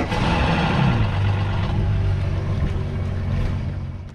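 Yamaha 250 SHO V6 outboard starting up: it catches, revs briefly and drops back to a steady idle, fading out near the end.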